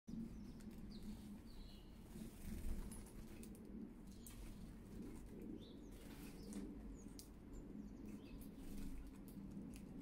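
Sparrows arriving at a seed feeder: wings flutter as they land, with a few short chirps and light clicks, over a steady low city hum.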